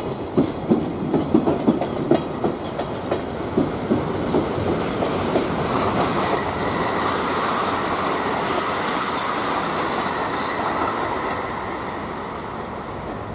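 Freight train's loaded container wagons (JR Freight Koki flat cars) rolling past, wheels clacking over rail joints for the first few seconds. The clacking then gives way to a steady rolling rumble with a faint high whine, which fades as the tail of the train moves away.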